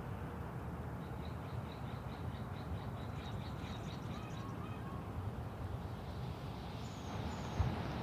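Outdoor ambience: a steady low rumble with faint small-bird chirps and a quick run of high ticking calls in the first half. Two low thumps near the end.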